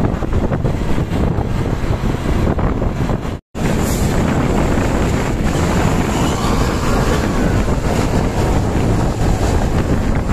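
Heavy wind buffeting the microphone over the low rumble of road vehicles. The sound cuts out completely for an instant about three and a half seconds in.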